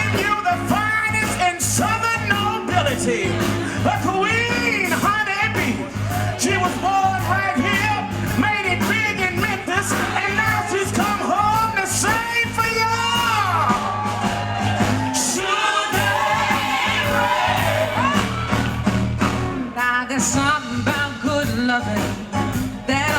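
Live band music with singing over a steady bass line.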